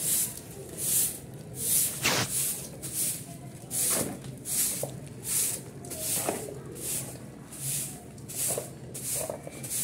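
Grass broom sweeping a concrete floor in regular swishes, about one stroke every three-quarters of a second, pushing dust and crumbled cement along the floor.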